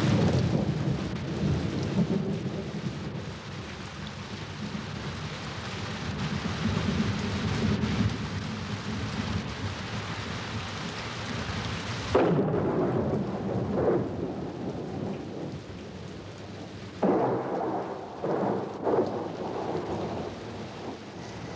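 Thunderstorm sound effect: a steady rumble with a rain-like hiss, then several sudden loud crashes of thunder from about halfway on.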